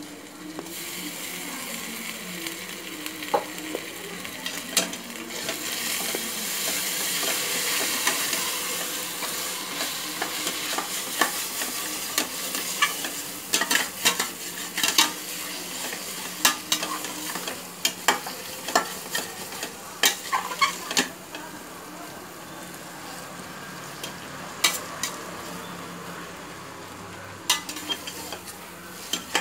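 Ginger-garlic paste sizzling as it fries in hot oil with onions and herbs in a steel pot, being sautéed. A spatula stirs and scrapes the pot with many sharp clicks; the sizzle swells a few seconds in and eases later.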